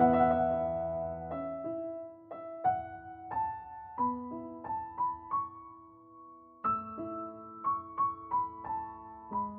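Background piano music: a slow melody of single notes, each ringing on, with a short pause about halfway before the notes start again.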